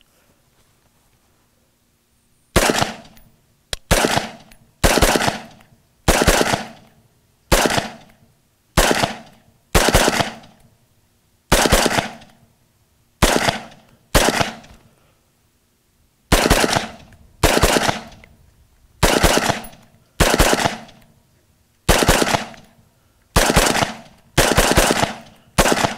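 AR-15 rifle firing 5.56 rounds in slow semi-automatic fire, about eighteen single shots roughly a second or so apart, each cracking and fading quickly, beginning a couple of seconds in. The rifle cycles a Magpul PMAG that had been left loaded for over two years without a single malfunction.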